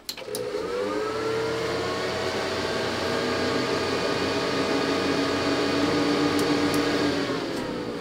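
Compaq ProLiant 3000 server being switched on: a click, then its cooling fans spin up over the first second to a loud, steady whir of several tones. Near the end the tones fall and the whir eases off as the fans slow down.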